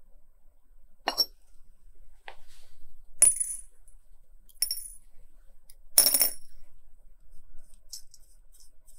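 Small metal watch movement parts dropped into a glass dish: five separate sharp clinks with a short bright ring, the loudest about six seconds in, followed by faint light ticks near the end.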